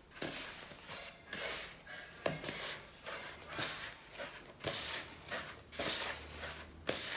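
Hands mixing soft, sticky bread dough in a bowl: short rubbing, squishing strokes about once a second.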